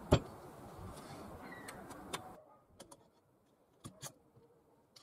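Small metal clinks and clicks of a nut, washer and bolts being handled, with one sharp clink just after the start. A faint hiss cuts off about halfway, followed by a few light clicks as a steel chainsaw bar is laid over the bolts onto the plate.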